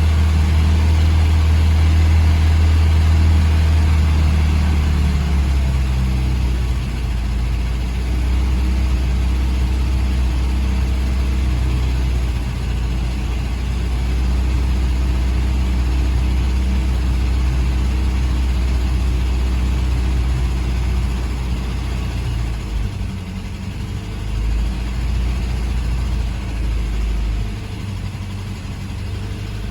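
GAZ M20 Pobeda's side-valve four-cylinder engine idling steadily while warming up for a cooling-system flush. The idle settles a little lower about six seconds in.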